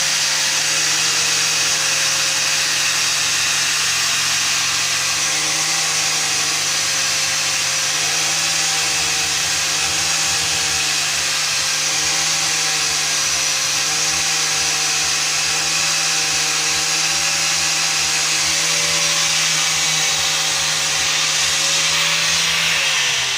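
An electric power tool's motor runs steadily and loudly for over twenty seconds, then slows with falling pitch as it is switched off near the end.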